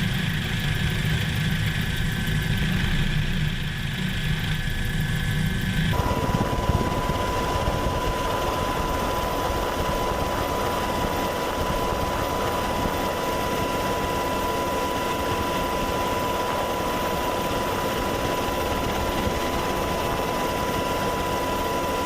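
Helicopters running on the ground, a steady engine and rotor noise. The first six seconds sound muffled with a heavy low rumble; then the sound changes abruptly to a brighter, fuller noise with a steady high whine.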